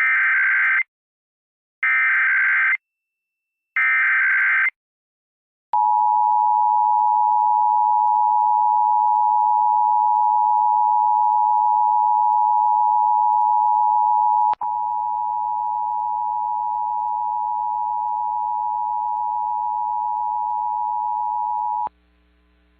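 Emergency Alert System broadcast tones. Three short bursts of the warbling SAME digital header come first. Then the EAS two-tone attention signal (853 and 960 Hz together) holds steady for about sixteen seconds; about two-thirds of the way through it drops in level with a click and a low mains hum comes in beneath it.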